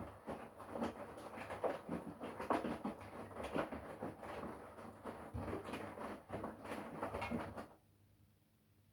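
Front-loading washing machine mid-wash, its drum turning with water sloshing and wet laundry tumbling in irregular splashes and soft knocks, over a low steady hum. The sound cuts off suddenly near the end.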